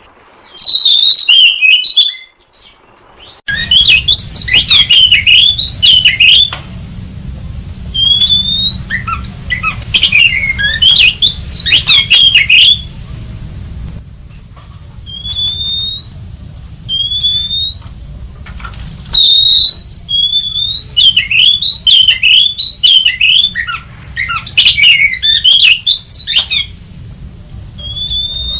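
Oriental magpie-robin calling in repeated bursts of harsh, scolding notes mixed with short whistles, over a steady low rumble that begins about three seconds in.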